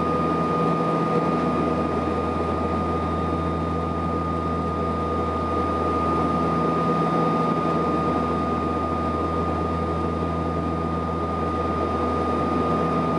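Cabin drone of a Saab 340B's twin General Electric CT7 turboprops in flight: a steady low propeller hum with a high whine over it. The low hum slowly swells and fades about every six seconds.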